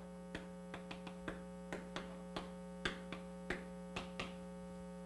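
Chalk writing on a blackboard: a dozen or so short, light taps and strokes at uneven intervals as a formula is chalked up, over a steady electrical mains hum.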